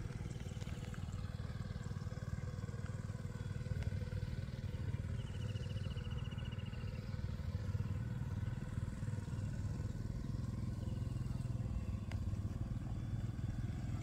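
A steady low engine rumble, like a small motor running nearby, with a short high rapid trill about five seconds in.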